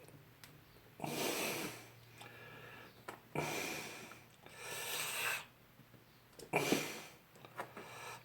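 A person breathing out hard, four long, noisy breaths a second or two apart.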